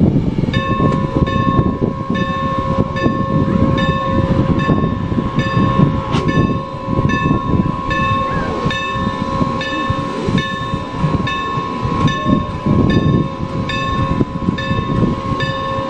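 A steam locomotive's bell ringing steadily, about two strikes a second, as the engine moves slowly up to couple onto the coaches. The bell starts about half a second in, over the engine's low rumble and hiss, with a single sharp clank about six seconds in.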